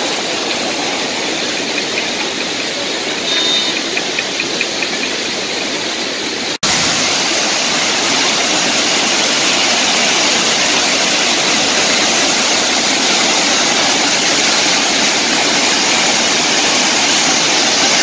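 Datanla waterfall's white water cascading over rocks: a steady, loud noise of rushing water. It drops out for an instant about six and a half seconds in, then comes back a little louder.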